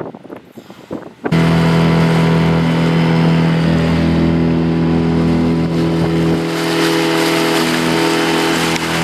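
A motor vehicle's engine running steadily at an even pitch, cutting in abruptly about a second in.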